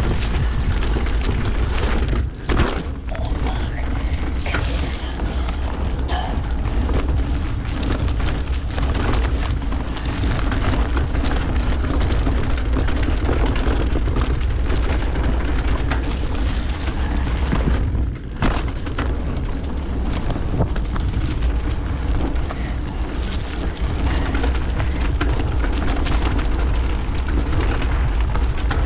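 Steady, loud wind rumble buffeting the microphone of a camera moving fast along a dirt trail, mixed with the rolling noise of the ride; it dips briefly twice.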